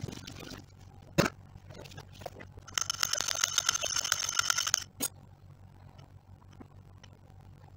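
A utensil beats egg in a drinking glass: rapid clinking and scraping against the glass, ringing at a few fixed pitches, for about two seconds starting a little before the middle. A single sharp knock comes about a second in.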